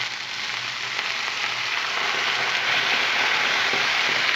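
Rabbit pieces and onions sizzling in butter in a hot pan, the sizzle swelling louder as a little water is poured in.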